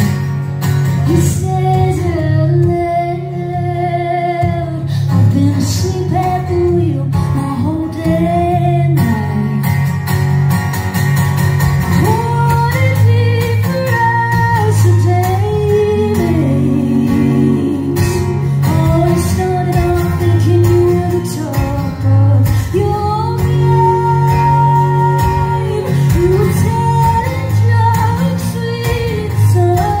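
Live rock band playing a song: a woman sings lead over strummed acoustic guitar, electric guitar and a steady bass line.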